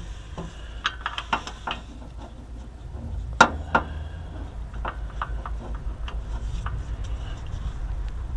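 Sharp metallic clicks and clinks of tools and parts being handled: a quick run of them about a second in and a louder clink about three and a half seconds in, over a low steady rumble.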